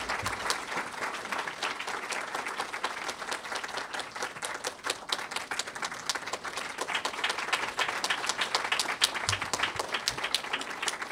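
Large audience applauding, many hands clapping steadily in a dense patter.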